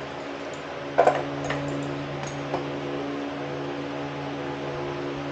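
A steady electrical hum, with a sharp double click about a second in and a few lighter clicks after it: small tools and parts being handled while the motorcycle's airbox is taken apart.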